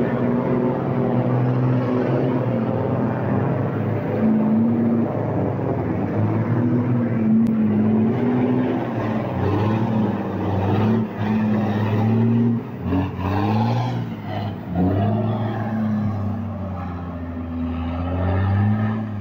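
Heavy truck's diesel engine labouring under load while driving through deep mud. Its pitch rises and falls with the throttle, with several quick revs a little past the middle.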